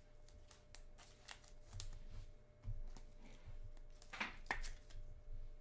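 Faint rustles and light clicks of a trading card being handled and put into a clear plastic holder, with a brief louder rustle about four seconds in.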